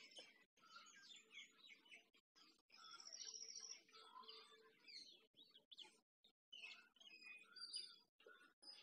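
Faint birdsong: several birds chirping on and off, with a rapid trill of repeated high notes about three seconds in.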